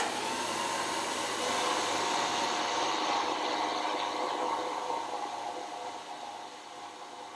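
Vertical milling machine running, its end mill cutting a step along a metal bar clamped in a vise: a steady whine over a hiss of cutting, easing off over the last two seconds or so.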